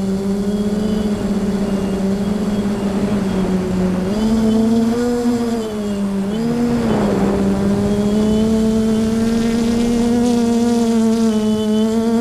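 Quadcopter's electric motors and propellers humming steadily as heard from the onboard camera, the pitch rising and dipping briefly with throttle changes about four and six seconds in. A short rush of wind noise about seven seconds in.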